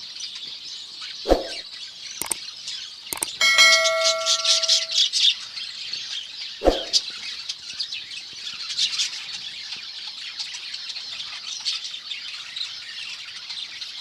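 Colony of budgerigars and finches chattering and chirping continuously. A few sharp knocks sound in the first seven seconds, and a brief ringing tone comes about three and a half seconds in.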